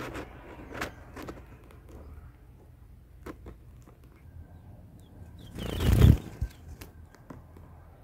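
Rustling of leaves and nest material with scattered soft clicks, and one louder rustle about six seconds in, with a few faint high chirps around it.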